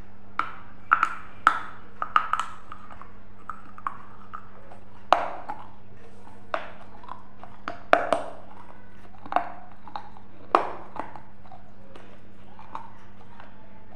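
Crisp food being bitten and chewed close to a lapel microphone: irregular sharp crunches and crackles, a dozen or so, over a steady low electrical hum.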